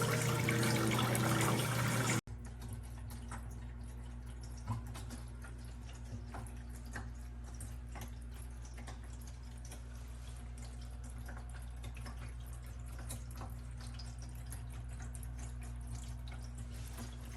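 Water falling in a freestanding waterfall fountain. A louder rush gives way at an abrupt cut about two seconds in to a quieter trickle with scattered drips over a steady low hum.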